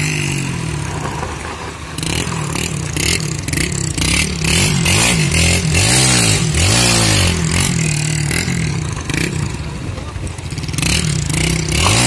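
Motorcycle engine running under way, its pitch rising and falling several times as the throttle is opened and closed, over a loud rough rushing noise.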